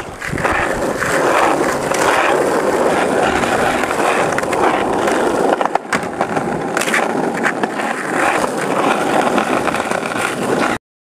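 Skateboard wheels rolling steadily over pavement, a continuous gritty roll with a few sharp clicks and knocks past the middle, cutting off abruptly near the end.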